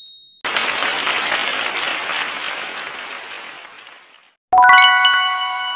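Applause sound effect, marking a correct answer in a quiz, fading out over about four seconds. About four and a half seconds in comes a bright chime of several bell-like notes entering in quick succession.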